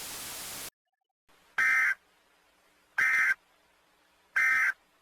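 Emergency Alert System end-of-message code: three short, identical, shrill digital data bursts about 1.4 seconds apart, signalling that the alert is over. Before them a steady static hiss cuts off abruptly under a second in.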